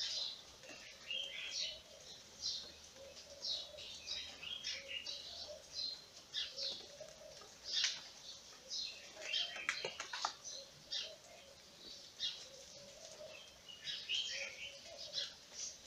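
Small birds chirping: many short, high calls in quick, irregular runs, with a few sharp clicks about ten seconds in.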